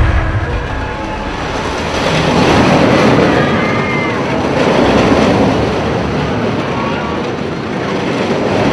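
Loud rushing rumble of a roller coaster running at speed along a wooden track, with wind noise. A few short high voices shriek about three seconds in and again near the end.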